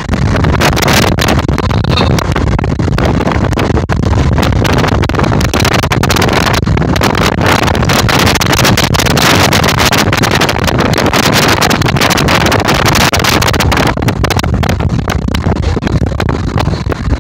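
Loud steady rush of wind and road noise from a moving car, with wind buffeting the microphone in rapid gusts.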